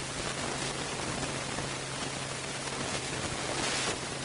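Steady hiss of recording background noise with a low, steady electrical hum beneath it, a little brighter for a moment near the end.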